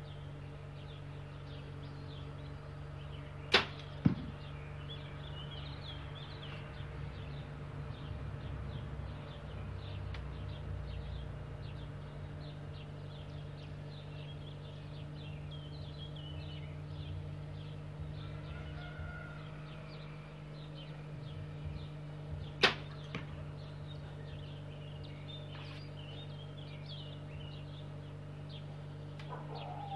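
Two shots from a compound bow fired with a hinge release: each a sharp snap of the string, about 3.5 seconds in and again about 23 seconds in. The first snap is followed half a second later by a second knock.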